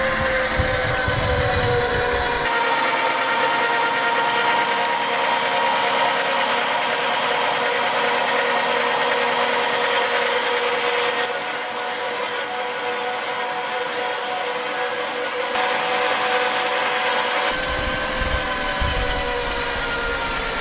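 Electric meat grinder running with a steady motor whine over a grinding, crunching noise as material is forced through it. The sound changes abruptly several times.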